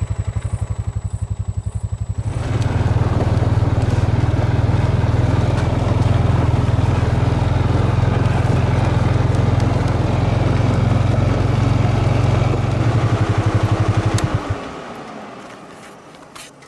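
Honda quad bike (ATV) engine idling, then running louder with added rumble as the quad is ridden. About fourteen seconds in the engine cuts off and the sound dies away.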